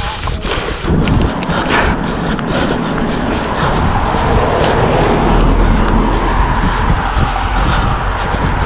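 Wind buffeting the microphone of a runner's body-worn camera, a loud steady rush with a deep rumble underneath.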